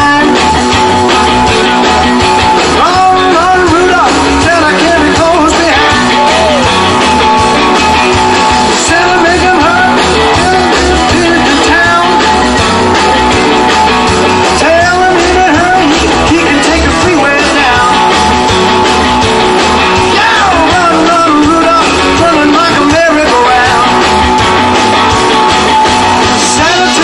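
Live rock and roll band playing on electric guitars, bass guitar and drum kit, with a melody line that bends up and down in pitch.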